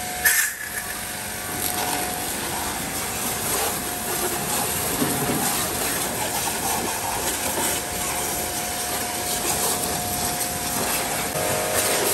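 Small electric pressure washer running: its pump motor hums steadily under the hiss of the water jet spraying onto a motorcycle.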